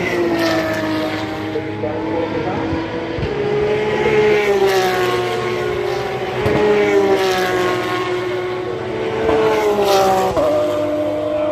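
GT race car engines running hard at a distance, their pitch repeatedly rising and falling as the cars accelerate and lift through the corners, with a sudden drop in pitch about ten seconds in.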